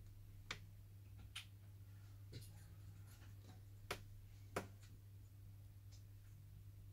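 Near silence over a steady low electrical hum, broken by about five light taps or clicks, the strongest two about four and four and a half seconds in: fingertips tapping a smartphone's touchscreen while its new LCD and digitizer are being tested.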